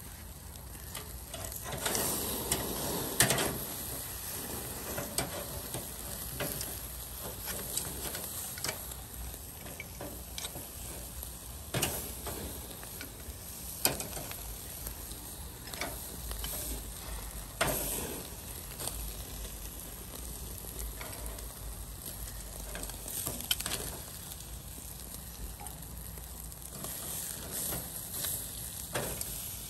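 Meat sizzling on a wire rack over a charcoal grill, a steady hiss broken by sharp pops and crackles every few seconds.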